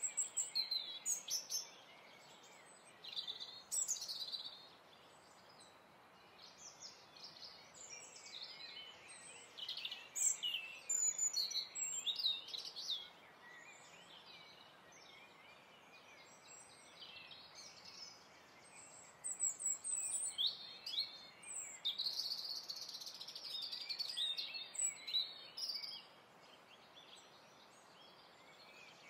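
Birds chirping and singing in clusters of quick calls over a steady hiss.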